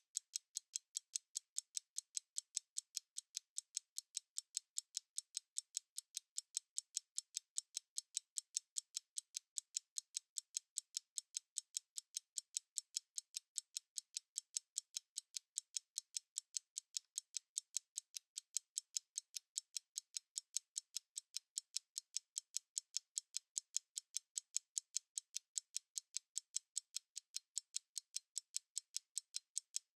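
Stopwatch ticking: fast, sharp, evenly spaced ticks, several a second, steady throughout.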